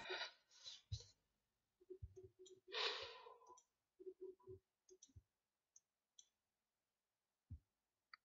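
Near silence broken by scattered faint clicks and one short breathy exhale about three seconds in.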